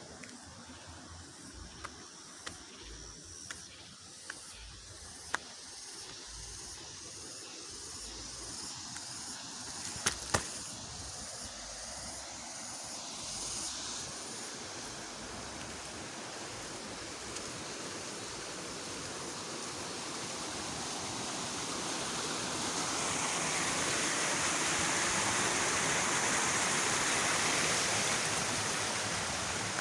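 Fast-flowing stream water rushing steadily, growing louder in the last third. A few sharp clicks or knocks in the first half.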